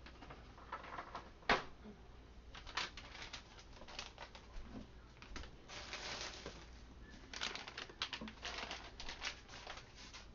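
Scattered clicks, taps and rustling from kitchen work: garlic cloves being dropped into glass canning jars, with one sharper knock about a second and a half in.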